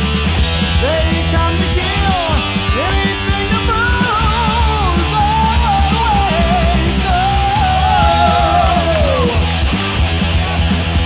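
Rock music with a wavering, sliding melody line over a steady bass.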